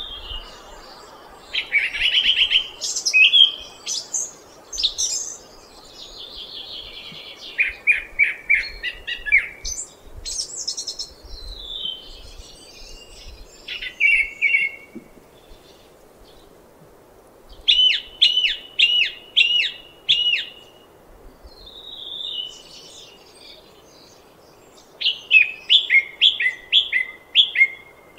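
Song thrush singing: a series of loud, varied phrases, each built from one short note figure repeated several times in quick succession, with short pauses between phrases.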